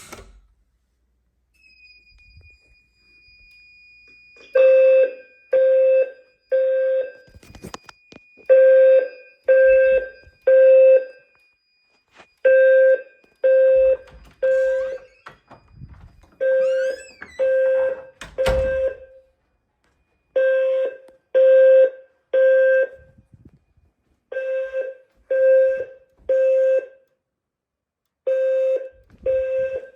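Fire alarm sounding the temporal-three evacuation signal: three low-pitched beeps about a second apart, a pause, then three more, repeating. The pattern begins about four and a half seconds in, after a click.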